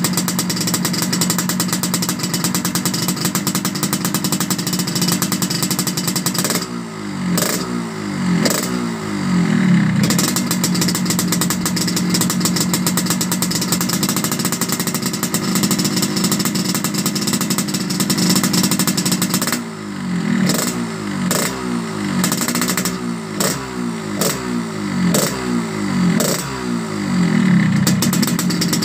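Yamaha RX-King two-stroke single-cylinder engine running through its gutted ('bobok') exhaust, tuned for a crisp, raspy 'garing ngorok' note. It idles steadily and is revved in quick throttle blips twice, about seven seconds in and again from about twenty seconds in.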